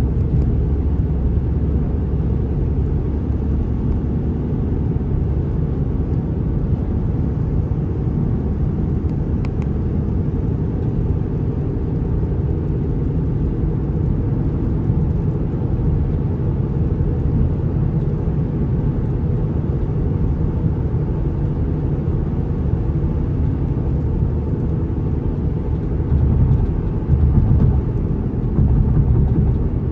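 Steady low road and tyre rumble inside a BMW X5's cabin while cruising on a wet highway, growing a little louder twice near the end.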